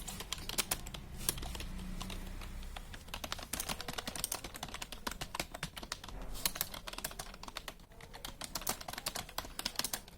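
Fast, continuous touch-typing on a computer keyboard: a rapid, uneven stream of key clicks.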